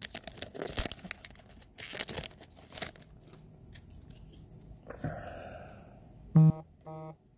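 A hockey card pack's wrapper being torn open and crinkled for the first few seconds, then quieter rustling. Near the end come two short low grunts, the first louder.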